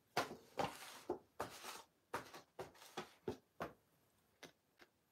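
A paper scratch card being handled and slid across a wooden tabletop: a quick, irregular run of about ten short, quiet rustles and scrapes that stops after about four seconds.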